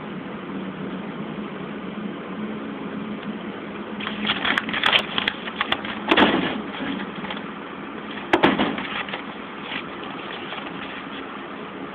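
Scattered beatbox mouth percussion: a quick, uneven run of clicks and snare-like hits starting about four seconds in, with two heavier kick-drum thumps about two seconds apart. Under it runs the steady hum of an electric fan.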